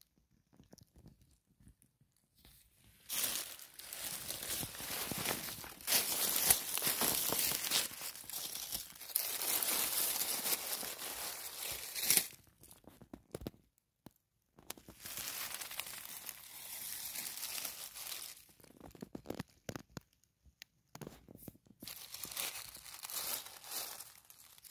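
Dry fallen leaves crackling and rustling as a hand moves them around a mushroom, in three long spells with short quiet gaps between.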